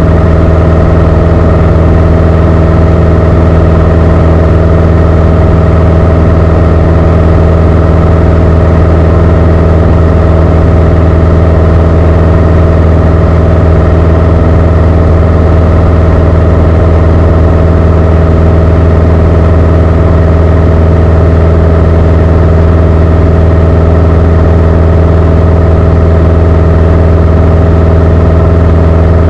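Beechcraft Sundowner's four-cylinder Lycoming engine and propeller droning steadily at climb power, heard inside the cabin. The pitch and level hold unchanged throughout.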